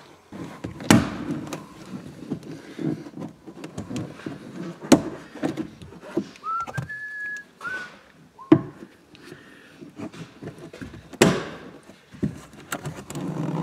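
Plastic trunk sill trim panel being pulled up and worked against its lock tabs: a series of sharp plastic clicks and knocks. About six seconds in there is a brief high whistle-like squeak.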